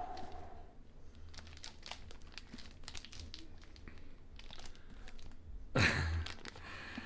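Clear plastic wrapping crinkling and crackling as a boxed hardcover book in a plastic sleeve is handled, with irregular small crackles and a louder rustle about six seconds in.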